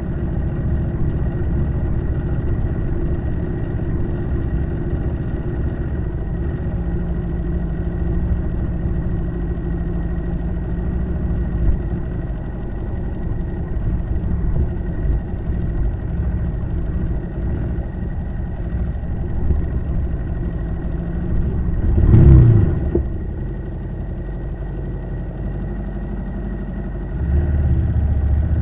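Motorcycle engine running steadily under way, with a brief loud surge that rises and falls in pitch about three-quarters of the way through, and the engine louder again near the end.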